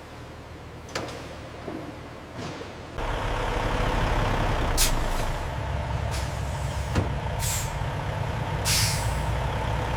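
A truck engine running with a low, steady rumble that starts about three seconds in, with three short hisses of air brakes.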